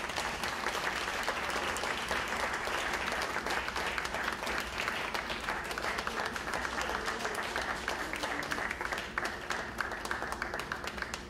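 Audience applauding, a dense, steady patter of many hands clapping that thins out near the end.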